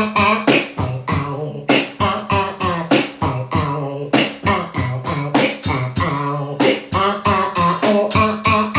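Vocal beatboxing: a steady rhythm of sharp percussive hits, about two or three a second, over a low voiced bass line that steps between a few notes.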